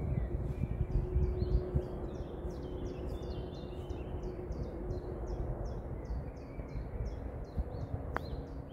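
Outdoor ambience of wind rumbling on the microphone, with a bird chirping in short repeated notes, about three a second. Near the end comes a single sharp click of a putter striking a golf ball.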